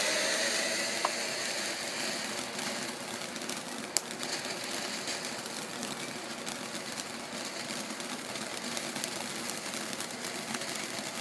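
Small ground-fountain firework hissing as it sprays, fading over the first few seconds and then burning on more quietly, with two small pops about a second and four seconds in.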